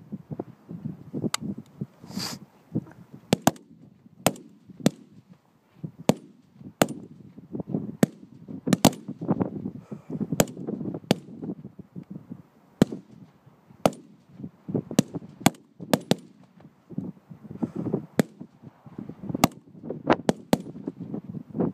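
5.56 mm SA80-family rifles (L98A2 cadet rifles) being fired on a range. Several shooters fire single shots at irregular intervals, sometimes two or three close together, about thirty sharp cracks in all.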